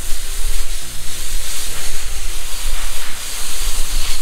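Hose spray nozzle hissing as a hard jet of water sprays against a salmon's side, stripping its scales off.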